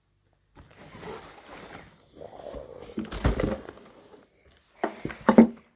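Packaging and metal locks being moved around and handled: rustling, a dull thump about three seconds in, and a few sharp clunks of metal near the end.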